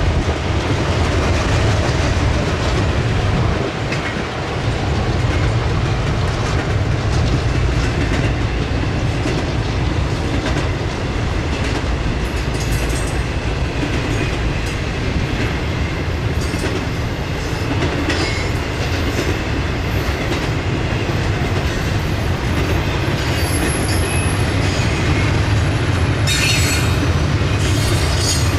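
Intermodal freight train's loaded well cars rolling past close by: a steady rumble and clatter of steel wheels on the rails. In the second half there are some high wheel squeals.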